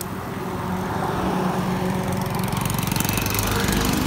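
A jeepney's engine idling with a steady, low rhythmic run, growing louder as the bikes ride up alongside it.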